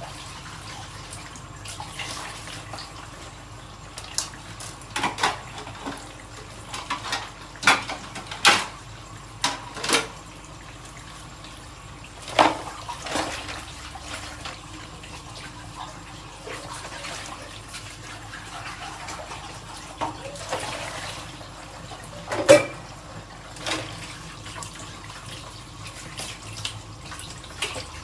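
Washing dishes at a kitchen sink: water running from the tap while dishes are handled, with irregular clinks and knocks. The clatter is busiest in the first half, and one louder knock comes late on.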